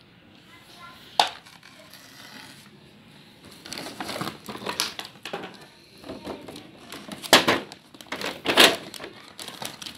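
Close handling of plastic toys: irregular rustling and crinkling, with a sharp click about a second in and the loudest rustles near the end.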